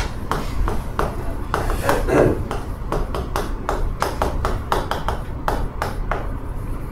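Chalk writing on a chalkboard: a quick run of sharp taps and short scratching strokes as each letter is written.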